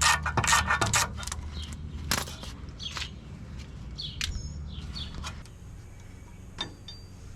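A run of sharp clicks and scrapes from hand tools working at the front wheel hub as the ABS sensor is taken out, easing off after about five seconds, with a few short bird chirps.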